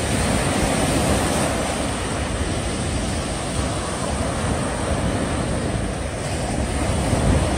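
Steady rushing noise of wind on the microphone and sea waves, with no distinct events.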